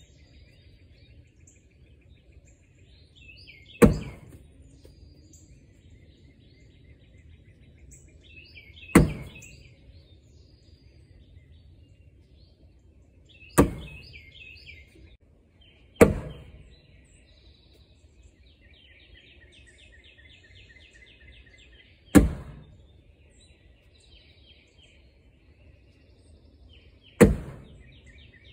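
Cornhole bags landing one at a time on a wooden cornhole board: six separate thuds, a few seconds apart. Birds chirp in the background between them.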